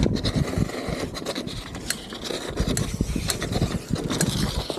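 Mountain bike tyres skidding and scraping across asphalt as the bike is slid sideways in a freestyle trick: a rough, uneven scrape that starts suddenly and surges and eases.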